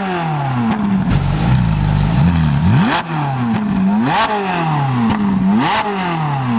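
Ferrari 458 Italia's V8 through a Capristo aftermarket exhaust, revved in sharp blips while stationary. Each blip climbs quickly, cracks at the top and falls back to idle, three times.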